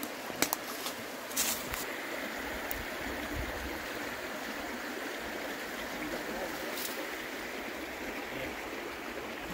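Creek water running steadily, an even rushing sound. A sharp click comes about half a second in, and another knock about a second later.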